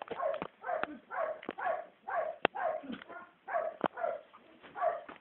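A dog barking over and over, short barks about two a second, often in pairs, with a few sharp clicks among them.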